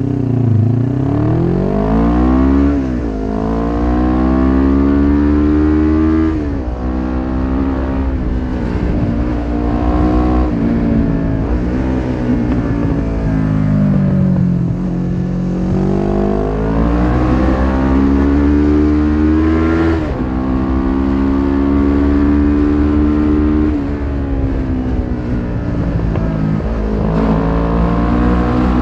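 1993 Suzuki GS500E's air-cooled parallel-twin engine through a Takkoni slip-on exhaust with its dB killer fitted, heard on board while riding. The engine note climbs and drops back at gear changes about three and six seconds in, falls away around the middle as the throttle is eased, then climbs again with another shift about two thirds through.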